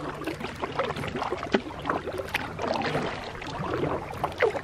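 Kayak being paddled: irregular small splashes and drips from the paddle blades, with light knocks, over a steady wash of water along the hull.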